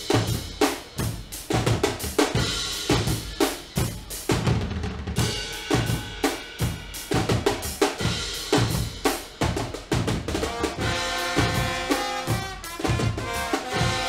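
Guggenmusik carnival brass band playing a fast, busy drum groove on bass drums, snare and drum kit, with the brass (trumpets, trombones, sousaphone) coming in with sustained chords about ten seconds in.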